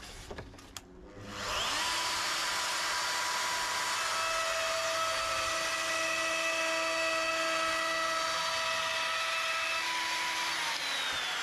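A Trend plunge router starts up about a second and a half in and spins up to a steady high whine. It keeps running while it routes a shallow first pass, about 5 mm deep, through a worktop held in a joint jig. Near the end it is switched off and its pitch falls as it winds down.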